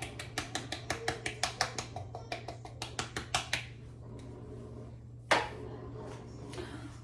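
A quick, even run of sharp taps and clicks, about five a second, from kitchen items being handled; it stops about three and a half seconds in, and a single loud knock follows about five seconds in. A steady low hum runs underneath.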